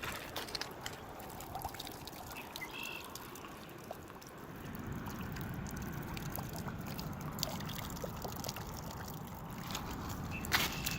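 Water trickling and dribbling, louder from about four seconds in, with scattered light clicks.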